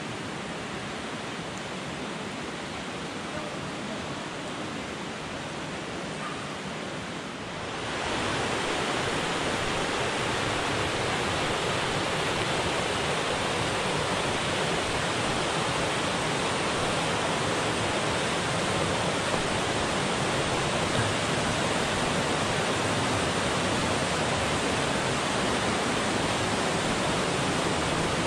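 Rushing water of a fast, rocky river running over rapids: a steady, even hiss that gets louder about eight seconds in.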